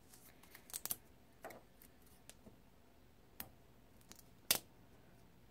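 Fingernails picking at and lifting a crooked strip of washi tape off a paper planner page: a few scattered small, sharp paper clicks and taps, the loudest about four and a half seconds in.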